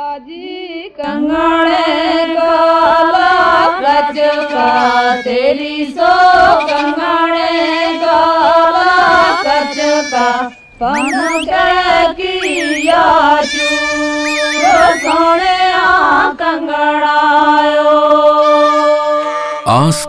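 Soundtrack music: a solo voice singing a slow melody of long held notes with sliding, ornamented turns, breaking off briefly about halfway through.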